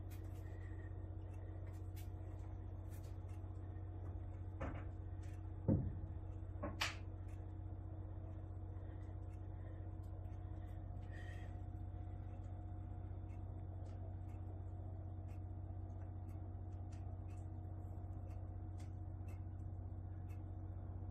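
Steady low electrical hum of a room, with a few dull knocks about five to seven seconds in, the loudest near the six-second mark.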